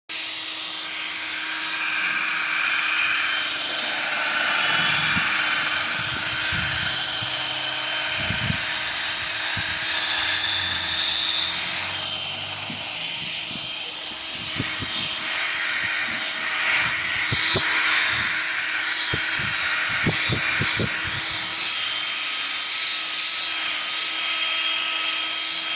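Electric drill spinning a sanding or polishing pad against a plastic headlight lens: a steady motor hum under a rough rubbing noise, with a few short knocks in the second half as the pad is moved over the lens.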